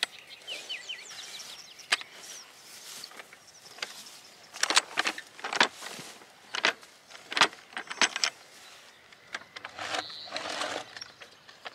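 Hand-operated post-hole digger working wet soil: a run of sharp knocks and clacks through the middle as the dirt-filled tool is lifted out and emptied onto the pile, then a scraping, crunching stretch near the end as it is twisted back down into the hole. Birds chirp faintly near the start.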